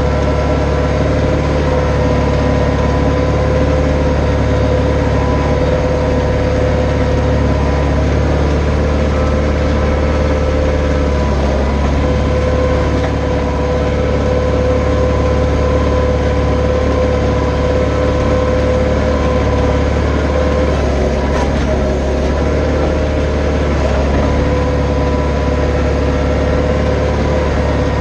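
Branson 4520 compact tractor's diesel engine running steadily while it pulls a box blade across dirt, with a steady whine over the engine note.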